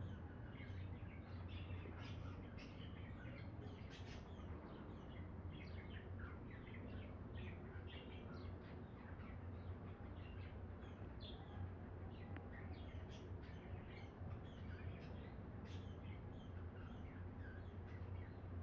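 Many small birds chirping at once, a dense run of short overlapping chirps, over a low steady hum.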